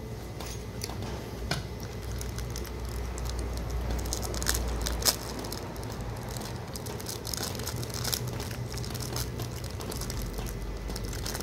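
Close-miked chewing: small wet mouth sounds and clicks of someone eating. A low steady rumble runs underneath, and a sharper click comes about five seconds in.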